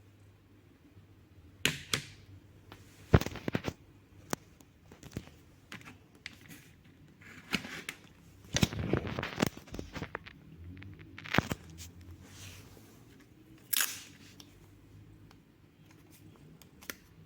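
Irregular sharp clicks and knocks with a stretch of rustling: a new electric fan and its packaging being handled by hand during unboxing. The loudest snaps come about three seconds in and near the end.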